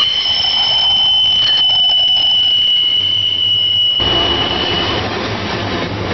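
Train wheels squealing on the rails, a steady high-pitched squeal that stops about five seconds in. About four seconds in, the deeper rumble of the rolling train suddenly gets louder.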